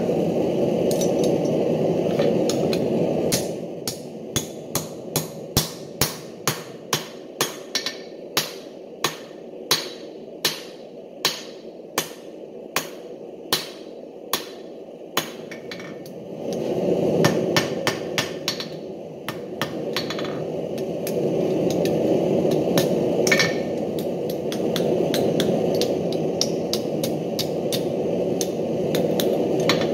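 Hand hammer striking hot nail stock on a steel anvil, ringing blows about two a second for some twelve seconds as the round rod is drawn down to a square point, then a few scattered blows as the nail is headed in the nail header. Before and after the run of blows, a steady low rushing noise.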